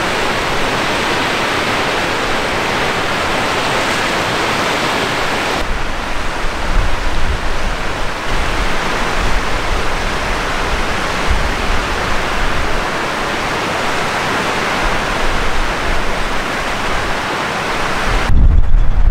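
Steady rushing of a mountain river's fast water. About six seconds in the sound changes abruptly: the river goes on with gusts of wind buffeting the microphone. Near the end a loud, low rumble of wind on the microphone takes over.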